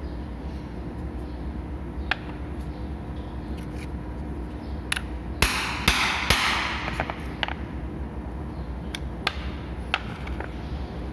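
Sharp clicks and knocks of a shower head's parts being handled and fitted, with a cluster of louder knocks and a short burst of noise in the middle, over a steady low hum.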